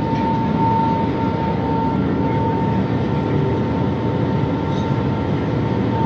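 Steady engine rumble and hull noise inside the passenger cabin of a boat underway, with a constant high-pitched whine running through it.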